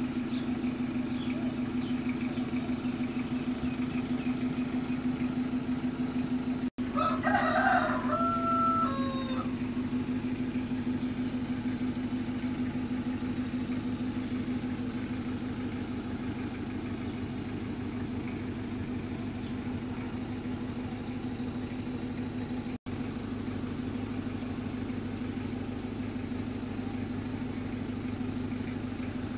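An engine idling with a steady drone, with a rooster crowing once, about seven seconds in, for about two and a half seconds.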